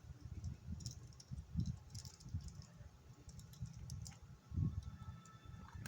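Scattered light plastic clicks and dull knocks of a laptop's memory compartment cover being worked open with a small screwdriver on its underside, at an irregular pace.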